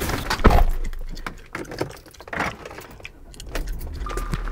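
A car door shuts with a thud about half a second in, followed by scattered light clicks and rattles. A low rumble comes in near the end.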